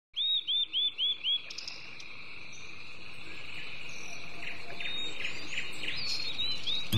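Birds chirping over a steady insect drone. One bird gives five quick repeated chirps at the start, and more chirps come near the end. Under them a continuous insect trill slowly grows louder.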